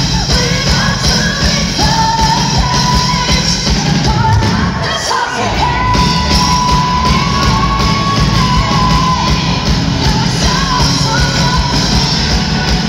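Live pop-rock band with a female lead singer holding long sung notes over guitar, keyboards and drums, heard from within the audience with crowd yelling along. The bass and drums drop out briefly about five seconds in.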